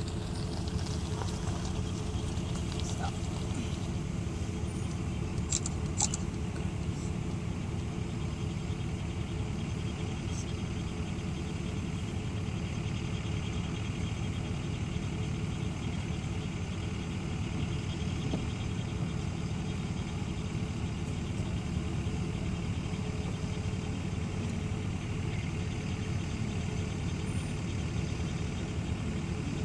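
Car engine and road noise heard from inside the cabin: a steady low hum with no change in pitch.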